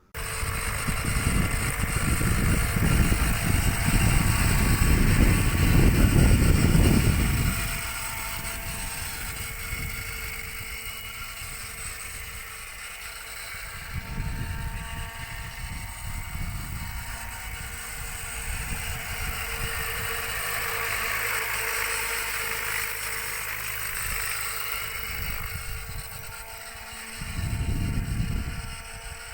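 Model helicopter in flight: a steady motor-and-rotor whine with a gusty low rumble of rotor wash on the microphone, heaviest for the first seven seconds and again near the end.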